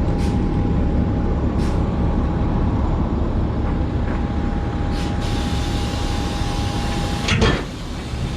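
Semi truck's diesel engine running steadily with a low rumble and a thin steady whine as the truck backs up to hook up. The whine stops about seven seconds in, with a short loud burst of noise.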